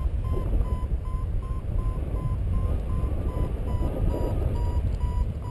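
Paragliding variometer beeping about four times a second at a steady pitch: the climb tone that signals rising air. Wind rumbles on the microphone underneath.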